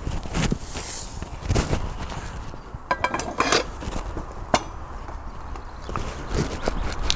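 Sealey TC960 manual tyre changer's steel bead-breaker lever being worked against a car tyre's sidewall, giving scattered, irregular metallic clanks and knocks. The tyre is still inflated to 36 psi, so the bead is not breaking.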